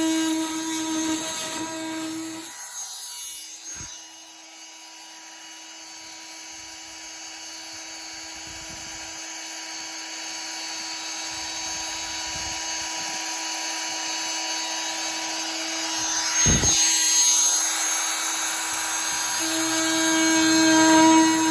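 Rockwell F65 oscillating multi-tool running with a steady high-pitched buzz while cutting through a dishwasher's plastic tub. It is loud for the first couple of seconds, drops back and slowly builds, then is loud again near the end, with two brief thumps along the way.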